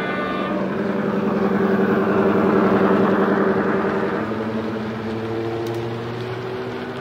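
Recorded diesel engine sound played by a model locomotive's DCC sound decoder through an EM2 speaker: a steady engine drone that grows louder as the train comes close, then eases and shifts to a lower note after about four seconds. A brief high note ends about half a second in.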